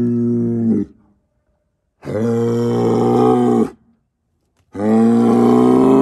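Angus bull bellowing in long, loud, even-pitched calls: the end of one call, then a full call of about a second and a half, then another beginning near the end. These are a herd sire's challenge bellows to the neighbouring bulls.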